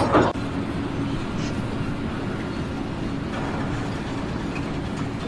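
A steady low mechanical rumble with a faint steady hum, like a running engine or machinery. A louder noisy sound cuts off just after the start.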